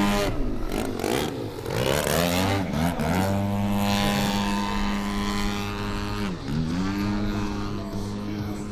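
Desert Aircraft DA-120 twin-cylinder two-stroke petrol engine of a 35% scale Edge 540 model aerobatic plane, in flight. The engine note swings up and down several times in the first three seconds, then holds steady and high, with one short dip and recovery about six and a half seconds in.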